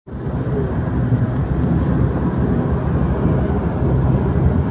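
Steady low rumble of road and engine noise from a moving vehicle at highway speed, heard from inside the cabin.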